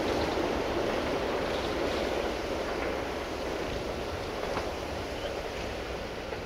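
Rumble of a train going away down the line, fading steadily.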